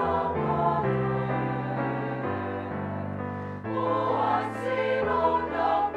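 Women's choir singing in parts, with low held bass notes beneath; the singing swells louder a little past halfway.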